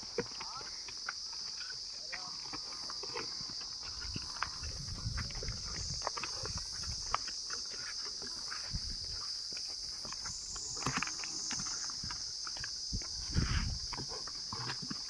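A herd of water buffaloes walking on a dirt path and a stone slab, with scattered hoof clops and scuffs, over a steady high insect drone. Two louder low rumbles come about four seconds in and near the end.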